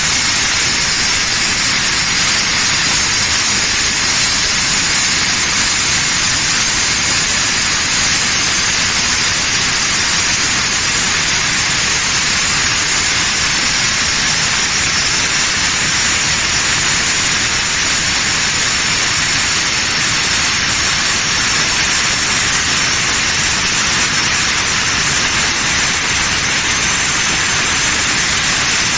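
Fixtop 2600 W angle grinder cutting stone: a loud, steady hiss that holds at one level without a break.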